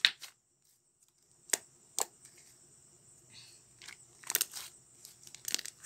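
Sticky homemade slime being kneaded and pulled apart by hand, giving scattered short sticky snaps and clicks with quiet stretches between them, a small cluster of them about four seconds in.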